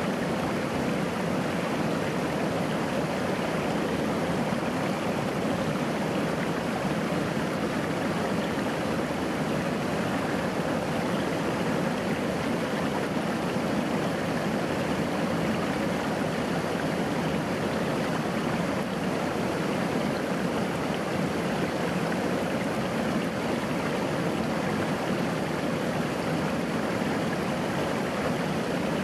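Small forest stream, water splashing and gurgling steadily over a low rock step into a shallow pool.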